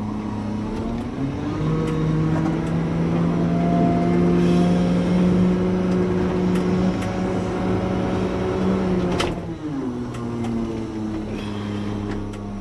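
Front-load garbage truck's engine heard from inside the cab, idling, then revving up about a second in as the truck pulls forward and holding steady higher revs, before dropping back to idle with a short sharp noise about three quarters of the way through.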